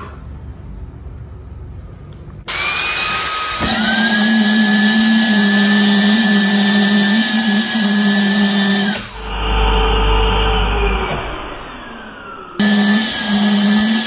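Brushless (BLDC) motor of an upgraded cordless vacuum cleaner switched to high speed. It spins up with a rising whine and runs steadily at full speed, then winds down with a falling whine, and starts again abruptly near the end.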